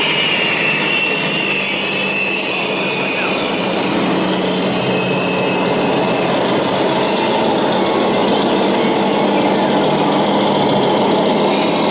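Several radio-controlled model Scania trucks driving in a slow convoy: a steady, dense mechanical whir with a constant low hum and a high whine over it.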